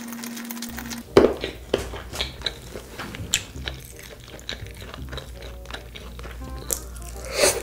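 Close-miked biting and chewing of crispy fried chicken drumsticks: a loud crunch about a second in, then a string of smaller crunches and clicks, with another loud crunch near the end. Background music plays under it.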